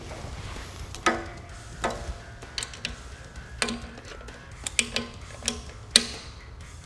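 Light clicks and knocks, about eight spread over several seconds, the loudest about a second in and near the end, as a Cold Steel Finn Wolf folding knife is handled and reset in the clamp of a spine-whack impact rig between strikes.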